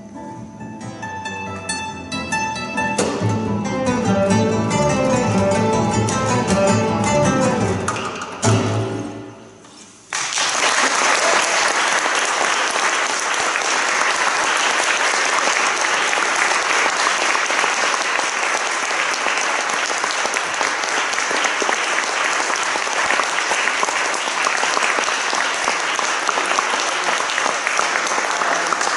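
Two classical guitars and a double bass play the closing bars of a tune, growing louder, and end on a final chord about eight seconds in that rings out and fades. About ten seconds in, audience applause starts suddenly and carries on steadily.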